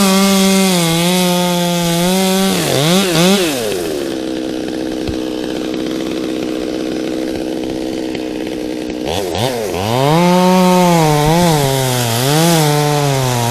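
Two-stroke chainsaw at full throttle that drops to idle about three seconds in, runs steadily at idle for several seconds, then is revved back up about nine seconds in, its pitch dipping and recovering repeatedly.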